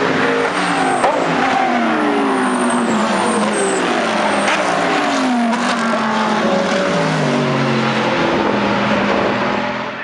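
A pack of GT3 race cars, led by an Audi R8 LMS with a Lamborghini Gallardo GT3 among them, passing close by at high revs. Several engines overlap, their pitches falling and rising through gear changes, with a sharp crack about a second in. The sound drops away near the end.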